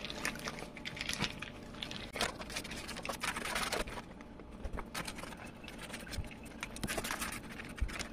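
Baking paper crinkling and rustling in irregular small crackles as pastry dough on it is pressed by hand into a silicone mould.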